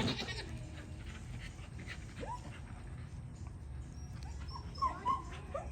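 Short, high animal cries: one about two seconds in and two more close together near the end, after a brief rustling bump at the start.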